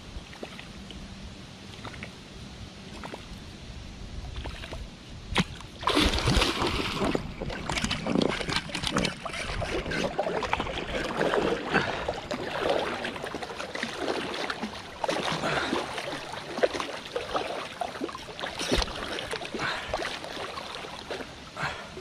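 Water splashing and sloshing close by, irregular and churning. It starts loudly about six seconds in, after a quieter stretch of low rumble, and goes on unevenly.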